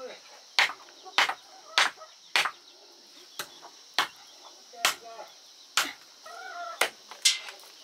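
Heavy knife chopping buffalo meat and bone on a wooden log block: about ten sharp chops, at first a little under two a second, then slower and uneven.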